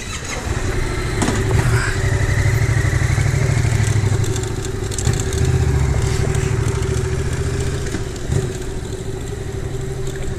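Police motorcycle's engine running steadily at low speed close by, a little quieter near the end.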